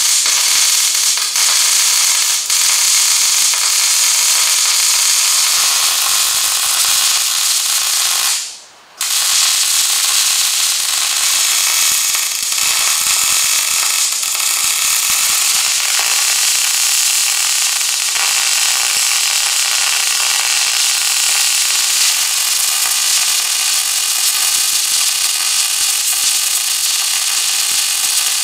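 MIG welder arc crackling and sizzling steadily as .035 wire is run into thick steel plate, with a brief stop about eight and a half seconds in before the bead resumes.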